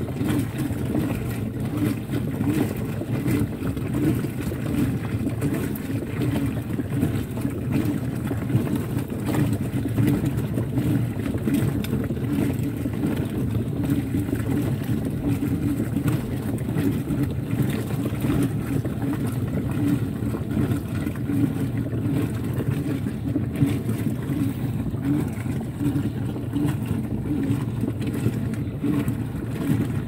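Brastemp Vantage 8.5 kg high-efficiency top-load washer running its wash action on a load of jeans: a steady low motor hum with wet clothes and water churning in the basket.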